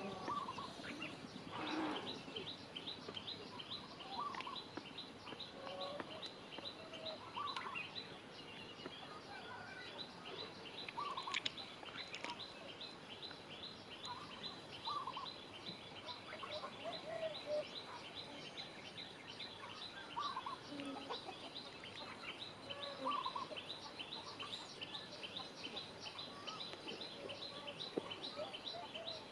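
Bird calls: short mid-pitched calls every couple of seconds over a steady, fast series of high chirps, about three a second.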